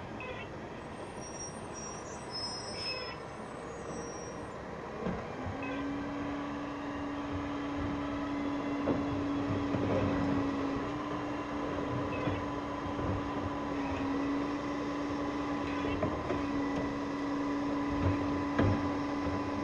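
Steady low machine hum that starts about five seconds in and holds one pitch, over a low rumble.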